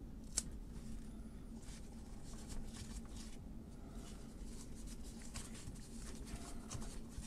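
Faint rubbing and handling noises of nitrile-gloved fingers pressing and smoothing a new adhesive label onto a plastic jigsaw motor housing, with one sharp tick about half a second in, over a low steady hum.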